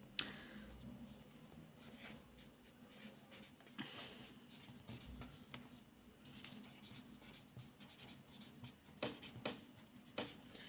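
Faint scratching of a pen writing capital letters on a sheet of paper, with a few sharp ticks along the way.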